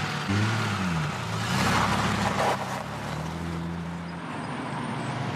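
Porsche 911 Cabriolet's air-cooled flat-six engine driving along a road. Its revs rise and fall in the first couple of seconds, then hold a steady note.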